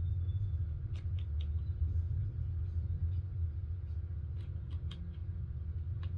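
A steady low rumble in the background, with scattered light clicks as the plastic links of a toy blaster's dart chain are fitted together.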